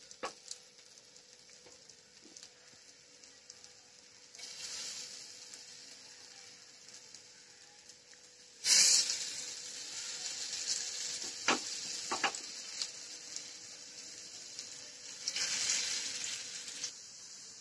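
Soya seekh kababs on bamboo skewers sizzling in hot shallow oil in a frying pan. The sizzle flares up as more kababs are laid into the oil, suddenly and most loudly a little past halfway and again near the end. A few light knocks are heard along the way.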